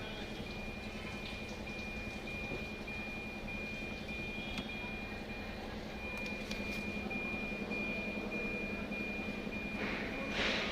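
Multimeter continuity buzzer sounding a steady high beep while the probes are held across a wire: the wire is connected through to the pin. The beep drops out briefly about six seconds in, over a low steady hum, with a short burst of noise near the end.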